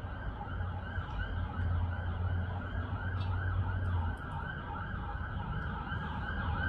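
Emergency-vehicle siren sounding a fast yelp, rising and falling about three times a second, over a low steady hum.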